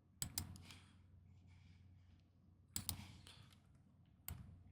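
Computer mouse clicks in three small groups, near the start, just before three seconds in and near the end, with near silence between.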